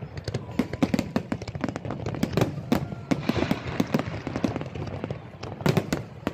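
Fireworks display: aerial shells bursting in a rapid, uneven run of bangs and crackles, with a tight cluster of louder bangs near the end.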